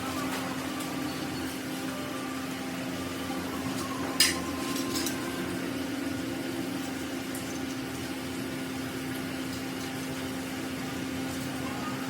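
A steady machine hum at one pitch, with a single sharp ringing clink of metal on metal about four seconds in, followed by a few light knocks.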